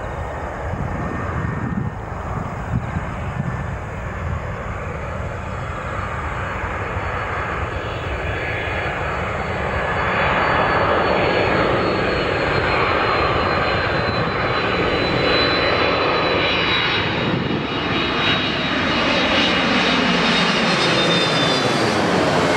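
Boeing 767-300ER airliner on landing approach coming in low overhead: the steady rumble and high whine of its jet engines, growing louder about halfway through. As it passes overhead near the end, the whine falls slightly in pitch and a sweeping, phasing hiss sets in.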